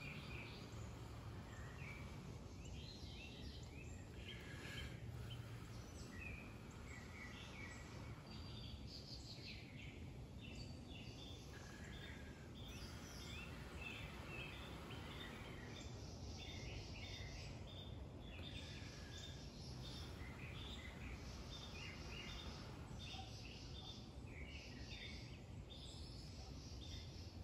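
Songbirds chirping in short repeated calls over a steady low outdoor background.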